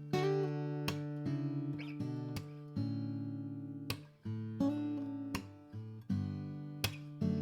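Atkin The Nineteen acoustic guitar, mahogany with a baked Sitka spruce top and phosphor bronze strings, played with the fingers: about ten chords struck one after another, each left to ring before the next.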